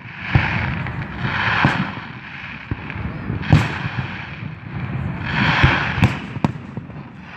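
Fireworks going off: about six sharp bangs at irregular intervals, two or three close together near the end, with a hissing crackle between them.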